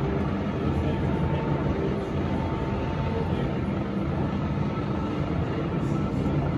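Roundhouse locomotive turntable turning under power, its drive running with a steady mechanical hum and a few held tones, and the loaded deck rumbling round on its rails.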